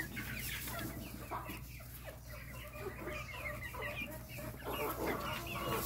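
Several chickens clucking in many short, overlapping calls, over a steady low hum.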